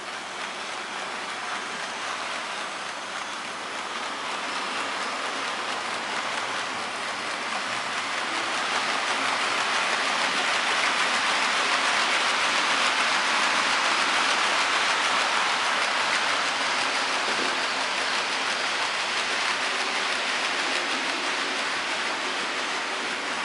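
Märklin H0 model train, a DR class 44 locomotive with refrigerator wagons, rolling over metal Märklin M-track. It makes a steady, even rolling noise that grows louder towards the middle and then eases off a little.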